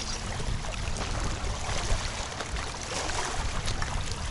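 Wind buffeting the microphone, with small waves lapping at the water's edge.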